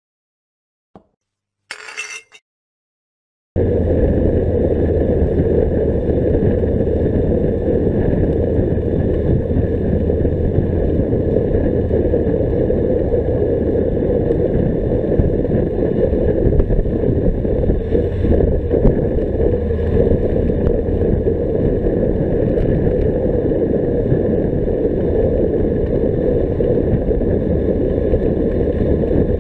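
Steady wind rumble and road noise on a bicycle-mounted action camera riding at speed. It starts abruptly a few seconds in, after near silence broken by one short sound.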